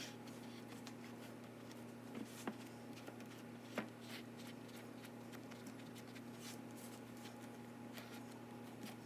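Quiet room with a steady low electrical hum, and a few faint soft taps and rustles from fingers pressing pie dough into a pie pan.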